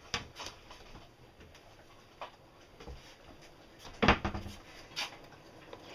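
Scattered clicks and knocks of kitchen utensils against a pan, the loudest about four seconds in.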